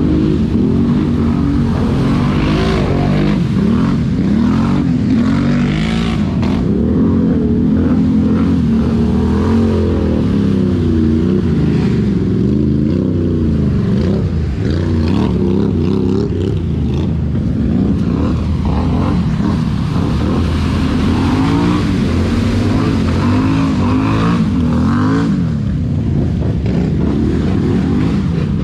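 ATV engine revving under way, its pitch rising and falling again and again as the throttle is worked.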